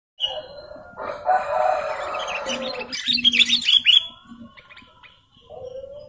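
Sooty-headed bulbuls (kutilang) calling: busy chattering calls, a quick run of sharp falling chirps about three seconds in, then one long steady whistled note starting near the end.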